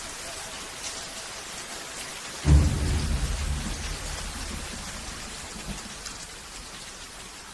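Heavy rain falling steadily, with a sudden clap of thunder about two and a half seconds in whose low rumble fades away over the following seconds.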